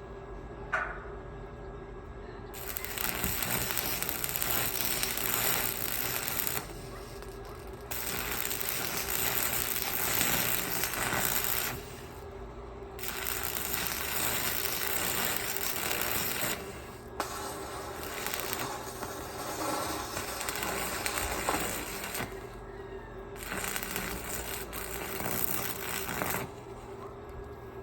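Electric arc welding: a crackling, hissing arc struck in runs of several seconds with short pauses between beads, over a steady hum.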